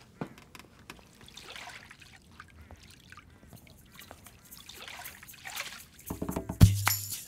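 Water trickling and sloshing in a glass fishbowl, with a short knock just after the start. Near the end music comes in, with a deep thump about once a second and jingling.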